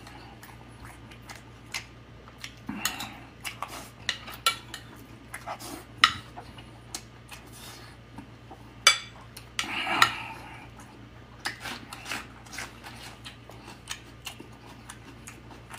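Metal spoon clinking and scraping against a ceramic plate while scooping rice: irregular sharp clicks, with a few louder ringing clinks past the middle.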